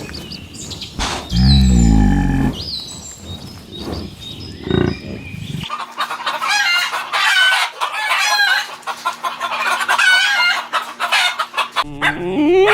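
Chickens clucking and a rooster crowing, in short clips joined by abrupt cuts: one loud call in the first part, then a dense run of rapid high calls about six seconds in.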